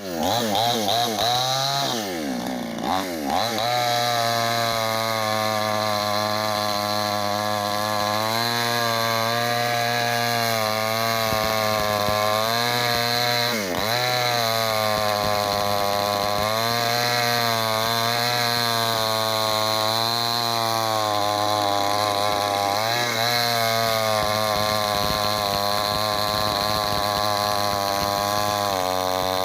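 Chainsaw running steadily at high speed while cutting wood, its pitch dipping briefly a few times as it takes the load.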